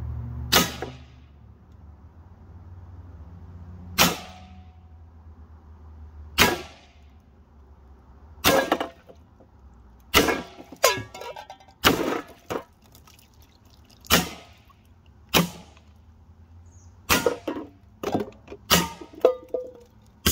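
AEA HP SS Plus .25 calibre semi-automatic PCP air pistol firing about a dozen sharp shots, a few seconds apart at first and coming faster in the second half. The shots come with metallic clangs of pellets hitting tin cans.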